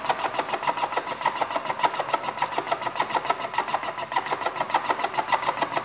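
Topmatik electric cigarette-filling machine running, its motor and tobacco-feed mechanism making a rapid, even clatter.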